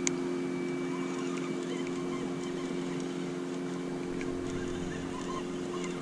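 Boat motor running steadily at low trolling speed, an even pitched hum. A single sharp click right at the start.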